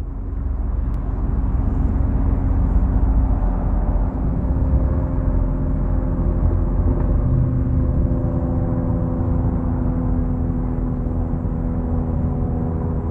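Diesel engine of heavy construction equipment running steadily, a deep rumble with a steady engine drone over it.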